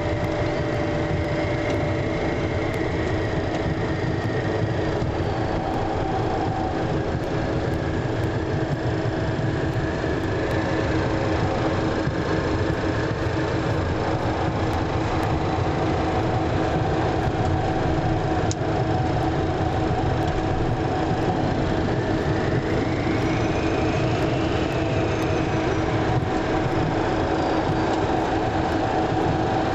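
Steady engine and airflow noise heard inside a Cessna Citation CJ2 from its twin Williams FJ44 turbofans, with a constant hum running through it.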